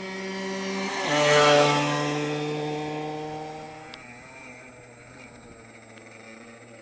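Gilera RCR motorbike passing by at speed: its engine note grows louder, drops sharply in pitch about a second in as it goes past, then fades away, leaving a faint engine sound in the distance.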